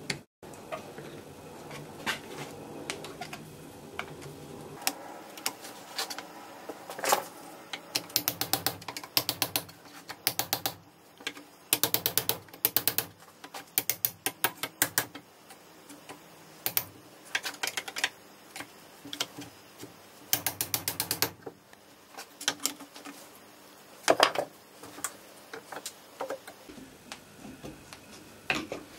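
Metal-on-metal clicking and scraping from hand tools working the brass WW1 British No. 80 artillery fuse clamped in a steel vise, as its pins and ring are pried and turned. There are several short bursts of rapid ratchety clicks and scattered single clicks, with one sharper knock about 24 seconds in.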